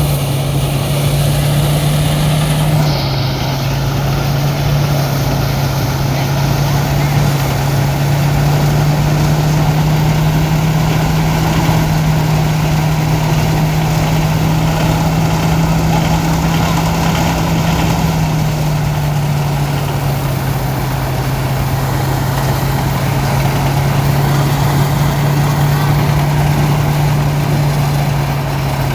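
Truck-mounted rice thresher running steadily under load, its engine and threshing drum giving a loud, continuous drone with noisy clatter, a sound like a broken-down machine that still keeps working. The hum dips slightly in pitch about three seconds in and again past the midpoint.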